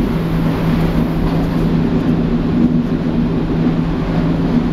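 Berlin S-Bahn class 480 electric train running, heard inside the passenger car: a steady rumble with a constant low drone on top, which the uploader finds oddly droning.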